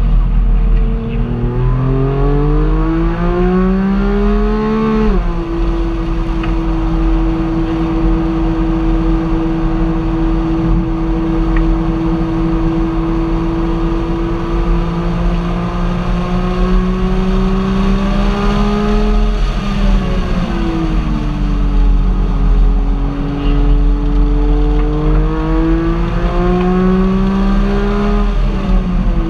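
Car engine under way: its note climbs under acceleration for the first few seconds, then drops sharply at an upshift. It holds steady while cruising, dips and recovers around twenty seconds in, then climbs again and drops at another upshift near the end.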